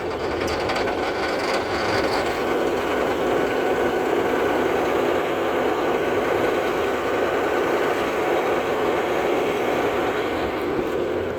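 Combine's Caterpillar diesel engine running steadily just after a cold start, the engine having finally fired in the cold.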